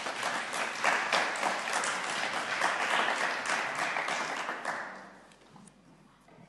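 Applause, dying away about five seconds in.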